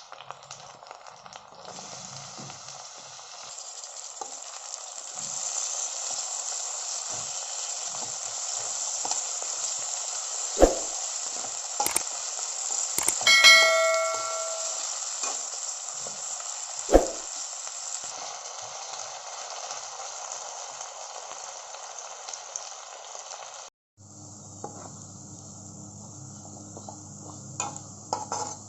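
Food sizzling as it fries in oil in a pan, a steady hiss for about twenty seconds. A few sharp knocks of a utensil against the pan are heard, and one ringing metallic clang comes about halfway through. The sizzle cuts off abruptly, followed by a quieter low hum near the end.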